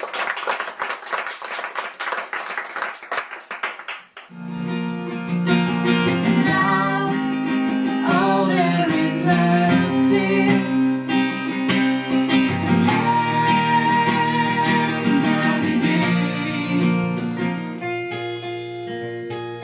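About four seconds of audience clapping, then an acoustic guitar starts playing and singing comes in over it.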